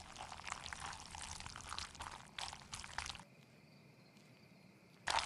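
Cartoon sound effect: a hissing, crackling noise that cuts off abruptly about three seconds in, then near silence, then a sudden rush of noise just before the end.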